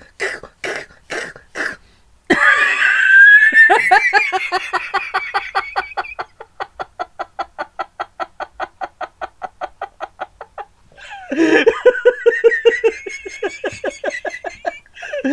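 A man laughing hard: a loud burst of laughter a couple of seconds in, then a long run of rapid, pitched "ha-ha" pulses, about five a second, and a second run of laughter near the end.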